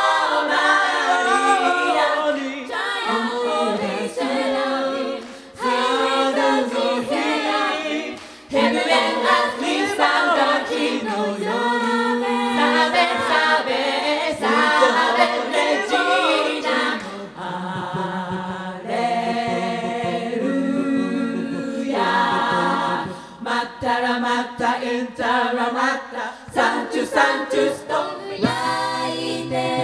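A large women's a cappella group singing in several-part harmony through microphones, voices only with no instruments. About a second before the end the singing changes abruptly to a different a cappella performance.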